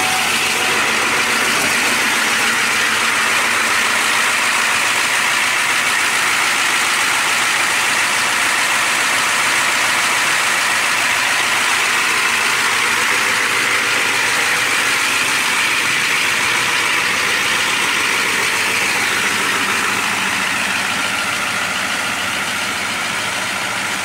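Ford F350's 7.3L IDI turbo diesel engine idling steadily.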